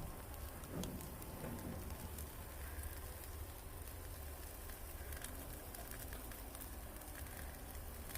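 Wood fire crackling and sizzling under grilling mackerel, many small sharp pops scattered over a low steady rumble.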